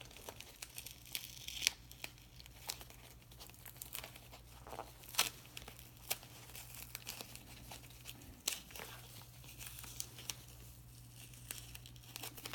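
Wrapping paper being carefully peeled and eased off a present: scattered soft crinkles, small tearing sounds and sharp little ticks at low level.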